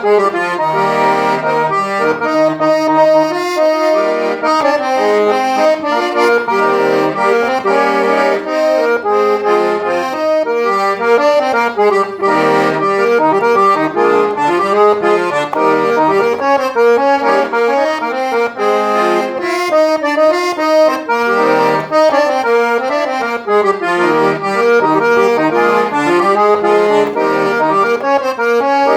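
Accordion playing a festa junina tune, a running melody over chords without a break.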